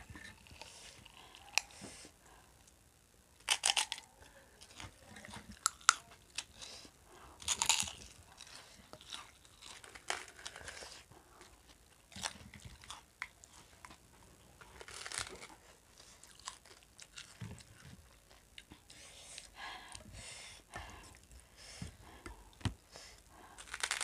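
Two people biting and chewing crunchy puffed corn sticks (gol finger) close to the microphone: a handful of louder crunches spread between quieter chewing, with small clicks of spoons against steel bowls.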